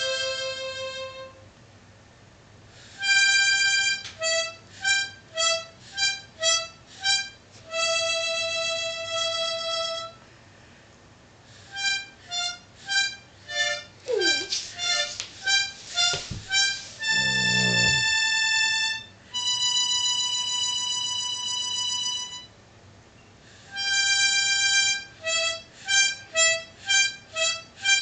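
Harmonica played badly, in halting phrases: runs of short repeated notes and a few long held notes, broken by pauses of a second or two.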